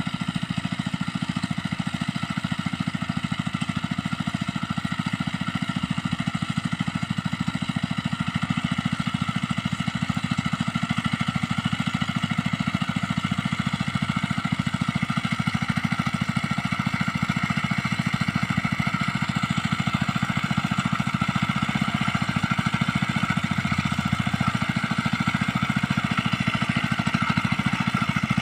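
Small engine of a mini rice-field tiller running steadily at a constant speed.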